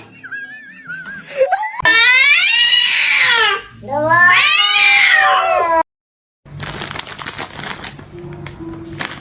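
A domestic cat giving two long, loud yowling meows, each rising and then falling in pitch. After them the sound cuts out abruptly for about half a second, and a different scene follows with scattered clicks and rustling.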